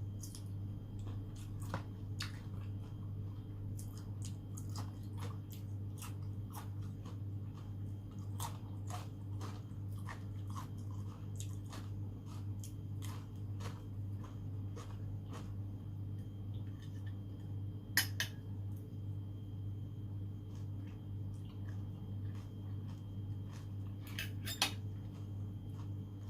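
Close-miked eating sounds: chewing of seafood with many small wet clicks and crunches, over a steady low hum. Two sharper clacks stand out, one about two-thirds through and one near the end.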